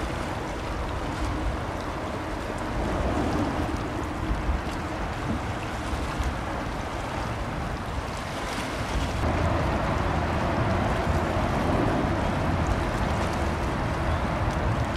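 Low rumble of boat engines on the water, mixed with water washing and wind buffeting the microphone; the noise grows somewhat louder about nine seconds in.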